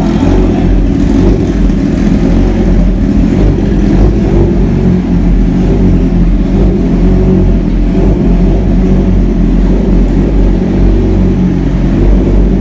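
Several superbike engines idling together inside a garage, a loud, steady low engine sound with no revving.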